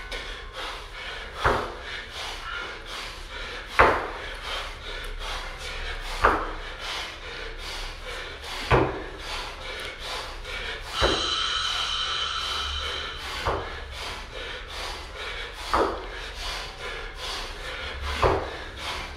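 Dumbbell snatches: the dumbbell thuds down on a rubber gym mat about every two and a half seconds, eight reps in all, with a hard breath on each rep. A steady high tone sounds for about two seconds in the middle.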